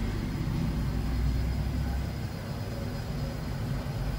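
A steady low rumble of background noise, a little stronger about one to two seconds in.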